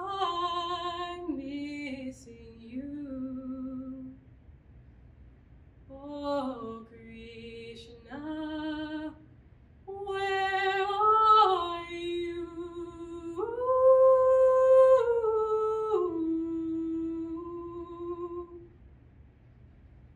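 A woman's trained singing voice, unaccompanied, in slow sustained phrases with vibrato and short pauses between them. The last and loudest phrase is held long and ends near the end.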